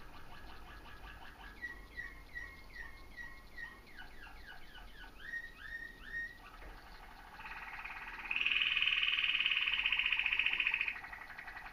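Bird calls: a series of short, repeated chirps with a few quick falling notes, then about eight seconds in a louder rapid trill that holds for under three seconds and stops abruptly.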